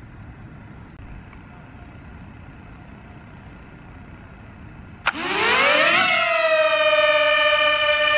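Zerotech Dobby pocket drone's four motors starting up about five seconds in: a whine rising quickly in pitch as the propellers spin up, then levelling off into a steady high-pitched buzz as the drone lifts off and hovers. Before that, only faint outdoor background noise.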